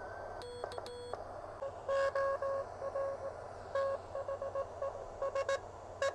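Morse code (CW) tone from a pocket uSDR-clone HF transceiver's speaker over a steady hiss of receiver noise: two short beeps about half a second in, then from about two seconds in a run of dits and dahs at a single pitch.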